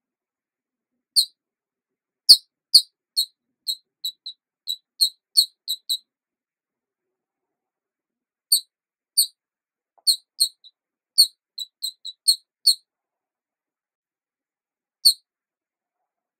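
Short, high-pitched chirps in quick, irregular runs with dead silence between them: a dense run from about two to six seconds in, another from about eight to thirteen seconds, and a single chirp near the end.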